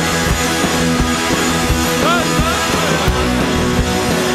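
Live rock band playing loud: electric guitars, bass and a drum kit, with steady drum hits through it.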